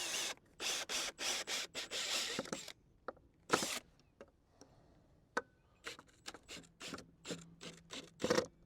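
A screw being driven into a wooden cover board: a quick run of short rasping strokes for the first two and a half seconds or so, then scattered clicks and knocks as the board and tool are handled.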